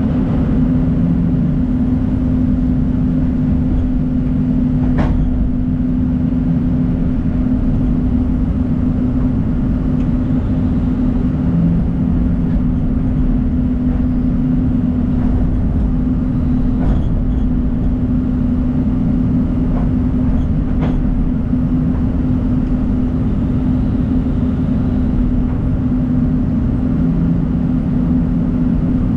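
John Deere 250G excavator's diesel engine running steadily with a strong even hum, with three brief knocks spread through.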